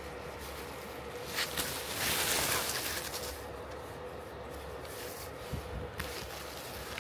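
Pruning shears snipping mandarin branches: a few sharp clicks, with a louder rustle of leaves and twigs about two seconds in, over a faint steady hum.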